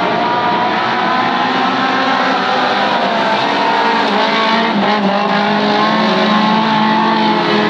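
Several dirt-track stock cars racing on the track, their engines running loud and steady together, with pitches that drift up and down as the cars go by.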